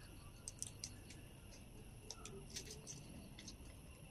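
Faint, scattered small clicks and plastic crackles of fingers picking at the thin plastic cover fitted on a new smartwatch, working it loose.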